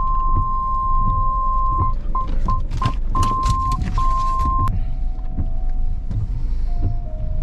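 A vehicle's electronic warning beep sounding in one long high tone, then a few short beeps, then two more long tones, over the low rumble of the vehicle creeping along a rough track. Around the middle come crackling scrapes and knocks of branches brushing along the body.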